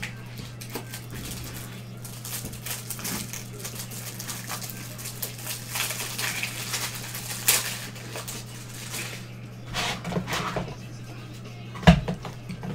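Rustling and crinkling of trading card packs and cards being handled, in irregular bursts, with a sharp knock near the end, over a steady low electrical hum.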